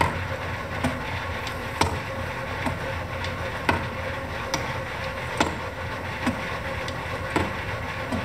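Eight-station turret of a Hardinge Model HC second operation lathe being indexed and clamped again and again with its hand lever: a metallic clunk about once a second, over the steady hum of the running machine.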